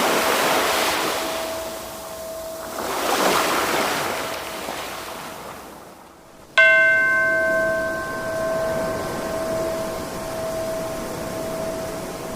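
Ocean waves washing in, with two swells in the first few seconds, under the fading ring of an earlier chime. About halfway through, a bell-like chime is struck once and rings on over the surf, slowly dying away.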